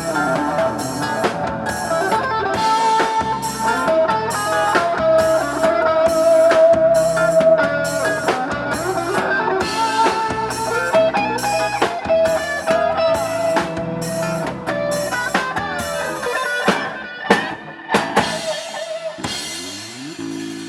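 Instrumental band music: electric guitar lead over a steady drum-kit beat, thinning near the end into a few separate drum hits.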